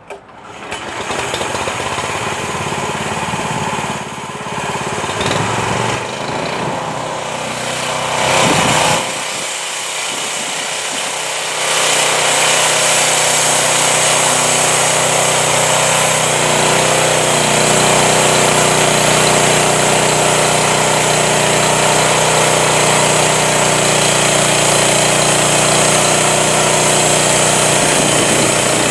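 Home-built Crosswood Model 28 band sawmill running, its engine and blade making a loud, steady mechanical noise that comes up at the start and grows louder and steadier about twelve seconds in.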